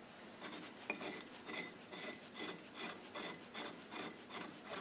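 Faint, regular rasping of metal on metal, about two or three scrapes a second, as a threaded collar-fitting tool is screwed by hand onto an R380 gearbox shaft.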